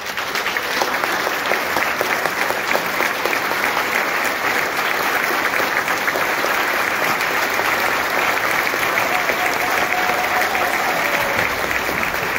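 Large audience applauding, breaking out all at once at the end of an orchestral piece and then continuing as dense, steady clapping.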